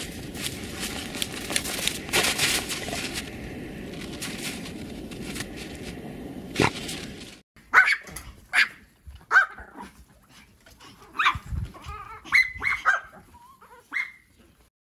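A dog digging in snow, paws scraping with scattered clicks. It cuts off at about seven seconds, and Pomeranians then yap with about eight short, high barks, spaced unevenly.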